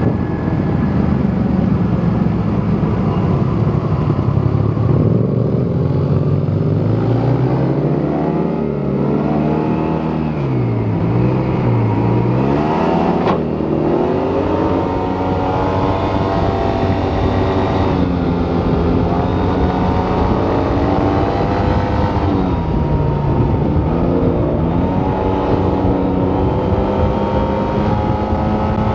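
Yamaha T-MAX 530 maxi-scooter's parallel-twin engine through its stock exhaust, heard while riding. The engine pitch rises and falls with the throttle, dipping and climbing again several times as the scooter slows and picks up speed.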